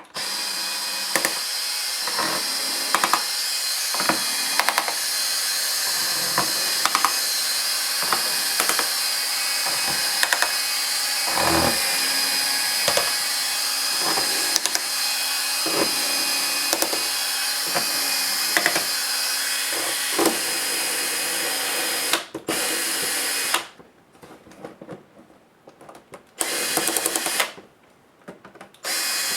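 Small electric screwdriver running steadily, backing screws out of a laptop's plastic case, with many sharp clicks of the bit and screws. Near the end it stops and starts in short runs.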